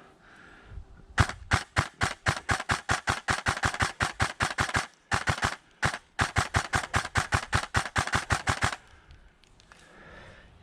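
An airsoft rifle firing rapid shots, about seven a second, close to the microphone. The shots come in three strings with two short breaks and stop about nine seconds in.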